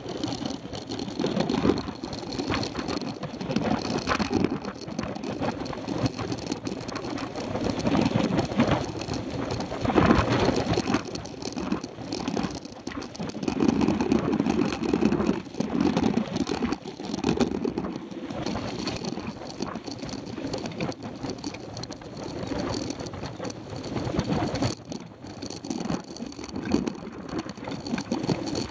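Mountain bike riding over a rough dirt road, heard from a camera on the handlebars: a continuous rumble of tyres on dirt that swells and fades, with frequent short knocks and rattles from the bike over bumps.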